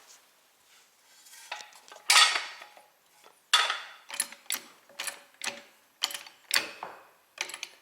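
Hydraulic trolley jack being pumped by its handle to lift the car: sharp metallic clanks and clicks, about two a second, some with a short ring.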